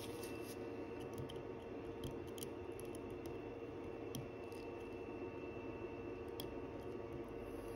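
Faint, scattered small metallic clicks of watchmaker's tweezers handling and seating a part (the ratchet wheel) on a watch movement, over a steady low background hum.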